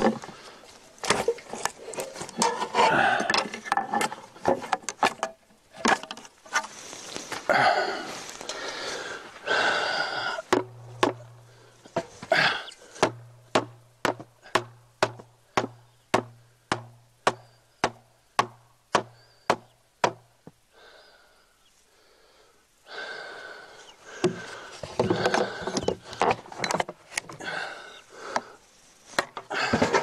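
Hammer blows on a wooden roof board as a broken 2x6 is knocked and pried loose from the cabin eave. Around the middle comes a steady run of about fifteen blows, roughly two a second, each with a low ring. Before and after it are stretches of rapid knocking, cracking and scraping of wood.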